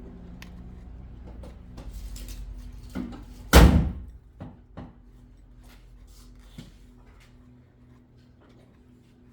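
One loud clunk about three and a half seconds in, with a short ring after it, and a few lighter knocks and clicks around it: tools and parts being handled while the quad's oil filter is refitted.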